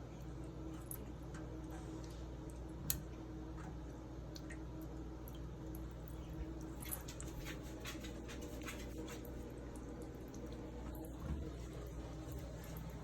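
Water running steadily from a tap into a sink, with scattered small splashes and ticks as a cat paws at the stream, and one sharper click about three seconds in.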